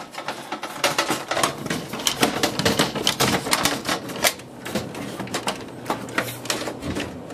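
Metal mesh side panel being fitted back onto a computer case: a quick, irregular series of metal clicks, taps and rattles.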